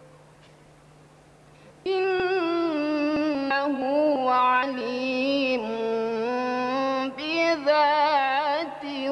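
A woman's voice reciting the Quran in a melodic, drawn-out chant, with long held notes and ornamented turns of pitch. It begins about two seconds in, after a pause.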